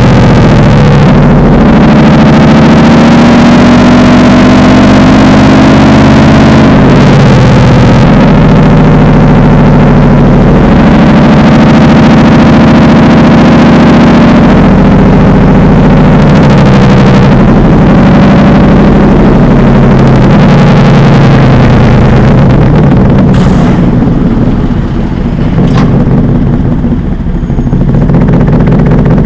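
Mercedes-Benz SLR McLaren's supercharged V8 running loud through an OFFICE-K "Devil Sports" aftermarket exhaust, engine speed climbing and dropping several times. The sound eases off briefly near the end before picking up again.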